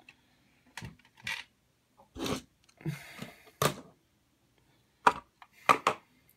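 Hard plastic parts of a Seiku-O robot toy clicking and knocking as it is handled: a run of separate sharp clicks, about eight in all, with short gaps between them.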